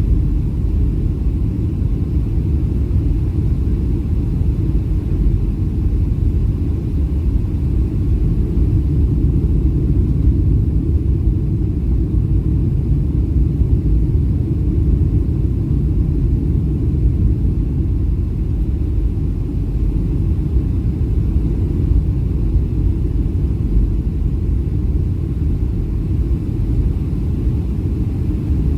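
Boeing 737-700 engine and airflow noise heard as a steady low rumble from inside the cabin.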